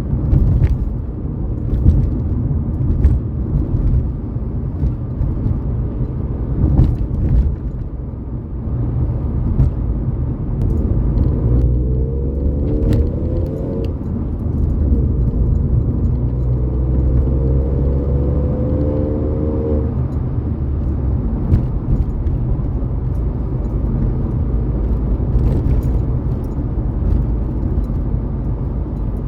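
Ford Fiesta EcoBoost engine and exhaust running with a steady deep drone; twice near the middle a rising tone climbs over it as the car accelerates.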